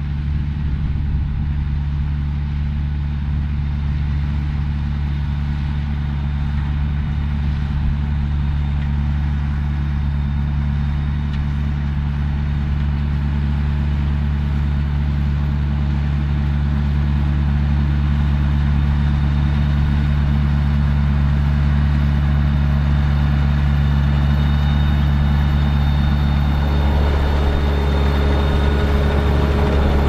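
Fendt 820 Vario tractor's six-cylinder diesel engine running steadily, pulling a potato harvester through the field. The sound grows slowly louder, and a rougher, higher noise from the working machinery joins near the end.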